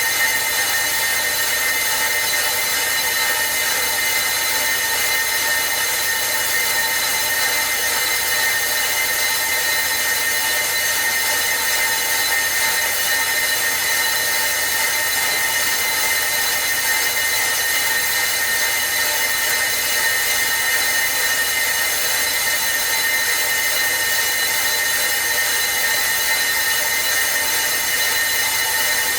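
Brake lathe machining a brake disc rotor: a steady machine run with several high, steady metallic tones over the cutting noise.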